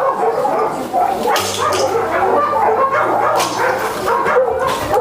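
Many dogs barking and yelping at once, a continuous din of overlapping calls.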